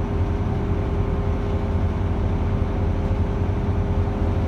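Cruise boat's engine running with a steady low drone and a faint steady hum above it.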